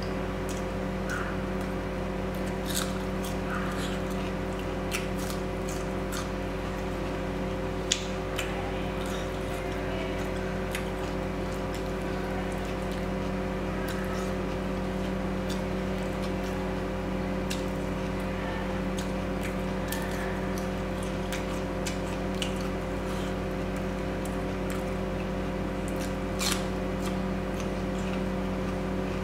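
Close-miked wet chewing and mouth sounds of eating curry and rice, with scattered small clicks and squishes, over a steady electrical hum.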